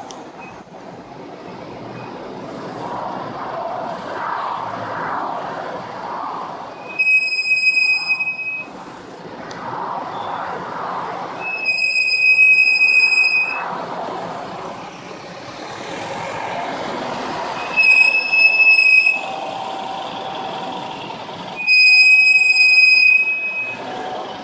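HAWK HPS brake pads squealing on an Opel Insignia's brakes: four high-pitched squeals, each about one and a half to two seconds long, over road and tyre noise.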